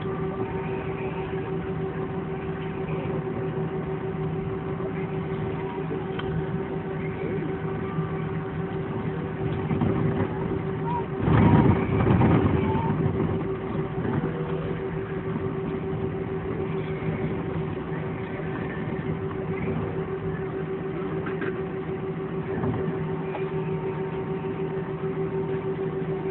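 Steady hum of an airliner's jet engines at low power, heard inside the passenger cabin, with a few held tones running through it. A louder rough rumble rises for about two seconds near the middle, then settles back.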